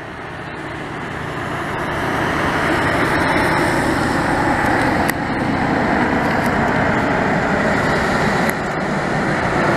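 Jet engines of a twin-engine airliner flying overhead, a steady rushing drone that grows louder over the first few seconds and then holds.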